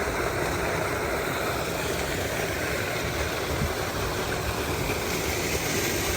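Steady rush of water from a small creek waterfall, an even hiss and roar with no change.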